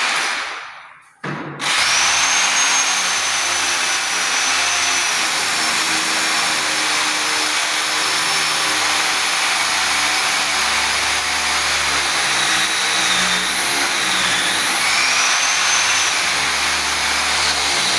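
Electric drill boring a hole in the wall for a blind bracket's wall plug. It winds down and stops just after the start, starts again about a second and a half in, and runs steadily, its high whine wavering a little in pitch.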